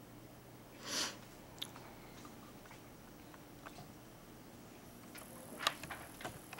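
Quiet room tone with a soft short rustle about a second in and scattered small clicks and taps, growing busier near the end, when a faint high steady whine also starts.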